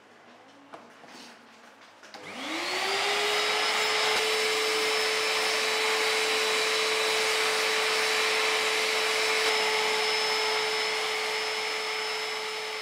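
Vacuum cleaner switched on about two seconds in, its motor whine rising as it spins up and then running steadily. A brush-nozzle attachment is being worked over a fabric table runner. A few faint handling taps come before the motor starts.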